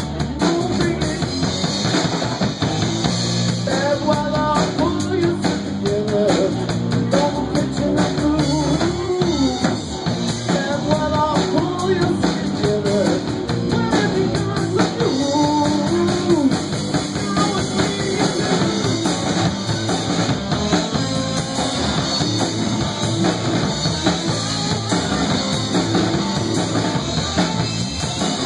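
Live rock band playing: drum kit and electric guitars, with a lead line that bends up and down in pitch through the first half.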